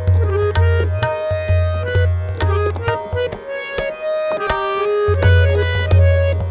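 Harmonium solo in Raag Charukeshi, its reeds playing a moving melodic line, accompanied by tabla strokes in a steady rhythm. The deep low bass drops out for a couple of seconds in the middle, then returns.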